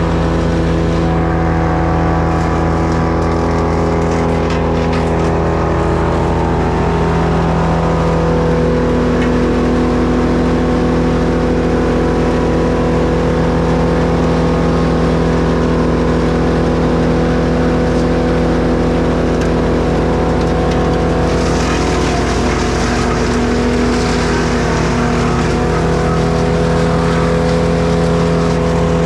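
An engine running steadily without a break, its pitch stepping slightly a couple of times.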